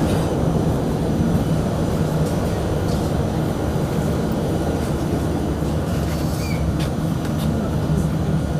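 Prague Metro train running through a tunnel: a loud, steady low rumble with a constant hum.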